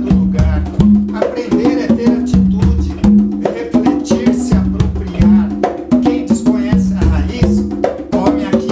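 Conga drums played by hand in a steady repeating pattern of low open tones and sharp slaps, the caboclinho rhythm, with a man's voice heard over the drumming.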